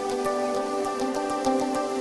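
Background music: slow, soft held notes, with light irregular high ticks over them.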